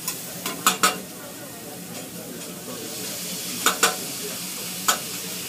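Food sizzling on a teppanyaki griddle, with sharp clacks of the cook's utensils on the hot plate: four in quick succession at the start, a close pair past the middle, and one more near the end.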